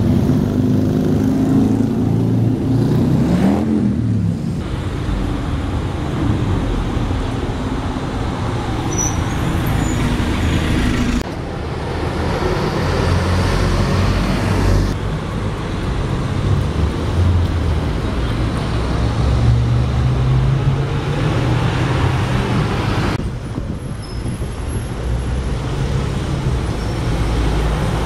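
Diesel buses running and passing at close range in street traffic: a single-deck bus moves off with its engine note rising about three seconds in, then a steady rumble of bus engines and tyres with general traffic. The sound changes abruptly a few times.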